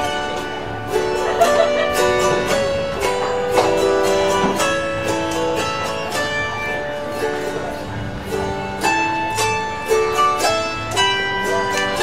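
Autoharp played solo: a melody of plucked notes over chords, each note ringing on and overlapping the next, in a traditional Welsh air.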